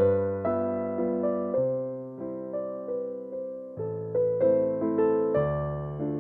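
Background piano music: a melody of struck notes that die away, over lower bass notes.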